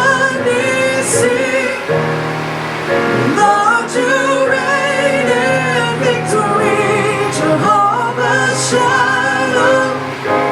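Church worship music: a voice sings long, wavering held notes over an instrumental accompaniment with sustained low notes.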